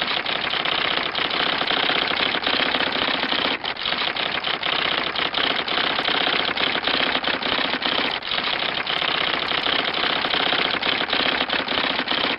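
Typewriter typing sound effect: a rapid, steady clatter of keystrokes, with two brief breaks, one a little under four seconds in and one about eight seconds in.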